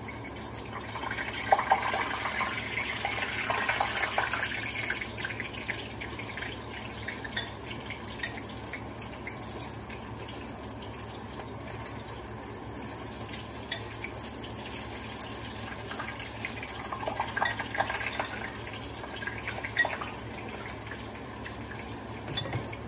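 Egg-battered broccoli florets frying in a pan of hot oil: a steady sizzle that swells for a few seconds just after the start as pieces go into the oil, with scattered crackles and pops, a cluster of them near the end.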